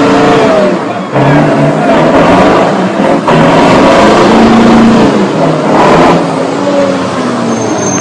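Iveco Turbostar 190.48 V8 diesel with open exhaust pipes revving hard under full throttle while the tractor unit drifts with its wheels spinning. The revs rise and fall several times, over a dense rush of exhaust and tyre noise.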